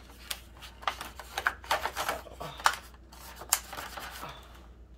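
Thin clear plastic of water bottles and a salad container crinkling and clicking in irregular small cracks as a paintbrush is pushed into it and a hand holds it steady.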